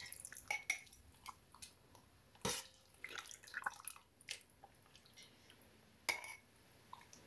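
Faint clinks and taps of a metal spoon against a stainless steel pot and a glass jar, with light dripping, as soft cooked peppers in brine are spooned into the jar. Two sharper knocks stand out, about two and a half seconds in and near the end.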